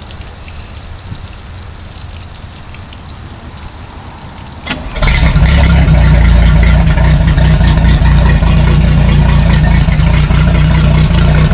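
OMC Cobra sterndrive boat engine, running out of the water on a flushing hose, starts after a brief crank about five seconds in and then idles steadily and loudly. Before it starts, hose water splashes faintly.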